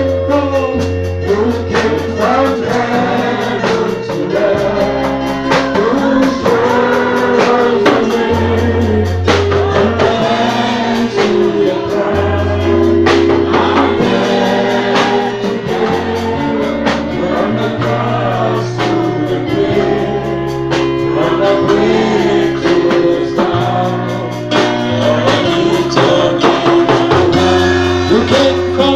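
Gospel music: singing voices over a steady beat and a bass line that changes note every second or two.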